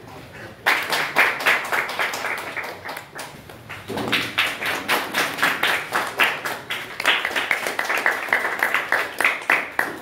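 Audience clapping: a run of sharp, closely spaced claps that starts abruptly under a second in and goes on at a fairly even pace.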